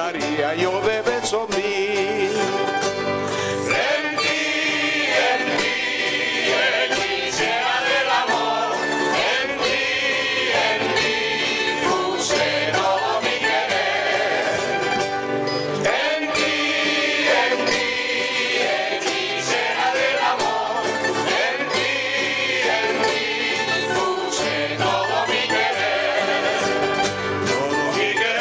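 Background music with several voices singing together.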